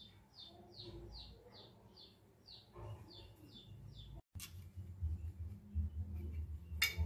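A quick run of about ten short, high, falling chirps, roughly three a second, from a small animal, stopping after about three and a half seconds. After a brief dropout a low hum sets in, and a sharp click comes near the end.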